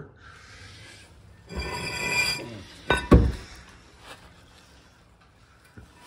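Cast-iron brake rotor being fitted onto a new wheel hub: a ringing metal-on-metal scrape about a second and a half in, then one loud clank about three seconds in.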